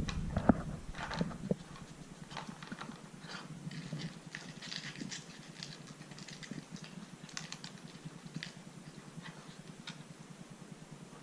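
Plastic clicks and knocks of a Dog Tornado puzzle as a dog noses and paws at its turning discs, a few louder knocks in the first second and a half, then softer scattered clicks.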